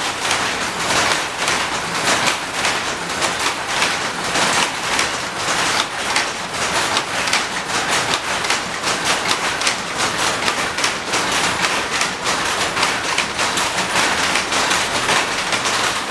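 Shuttle looms weaving, a continuous rapid mechanical clatter of the shuttle being picked across and the reed beating up each weft.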